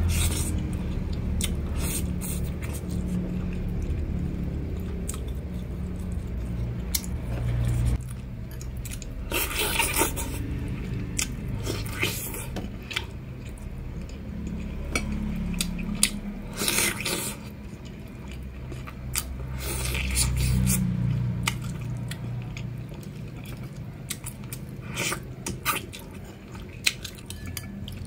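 Close eating sounds: biting and chewing soft stewed chicken with wet mouth noises, now and then the clink of a metal spoon on a bowl, over a steady low hum.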